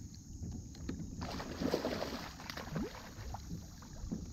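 Water splashing and sloshing beside a kayak as a hooked fish thrashes at the surface, loudest for about two seconds in the middle, over a low rumble of wind.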